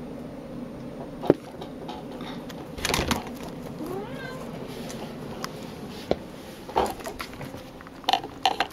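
Cat at a plastic food container: several sharp knocks and clatters of the container as she noses into it, with a short meow about four seconds in.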